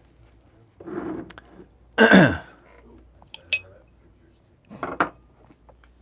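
Small drinking glasses and a spoon being handled on a wooden table: scattered light clinks and knocks of glass, with one louder squeak that falls in pitch about two seconds in.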